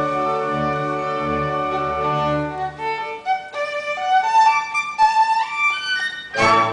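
Violin playing with a small orchestra: the ensemble holds a chord for about three seconds, then the violin carries on alone in a quick run of notes with slides, and a loud full chord comes in near the end.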